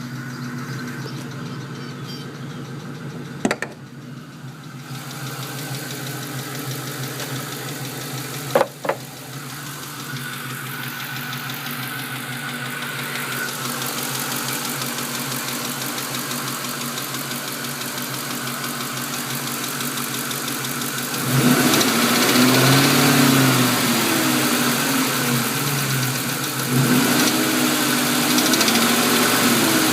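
2001 Mustang GT's 4.6-litre V8 running warm with a ticking, which the owner thinks comes from the driver-side head and which is loudest underneath by the exhaust manifold. Two sharp knocks come a few seconds apart early on. About two-thirds of the way through the engine sound gets louder, with its note rising and falling.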